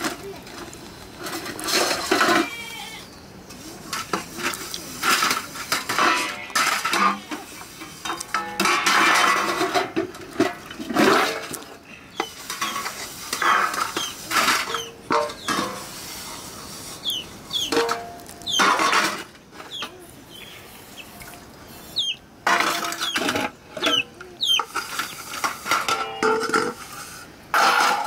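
Stainless-steel plates and a steel pot being scrubbed with a scourer and stacked by hand, giving repeated metallic clatters, clinks and scraping, with the odd plate ringing briefly.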